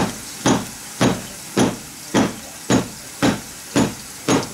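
Large kitchen knife chopping down through a sea bream on a newspaper-covered counter: nine sharp, evenly spaced chops, about two a second, over a faint hiss of running tap water.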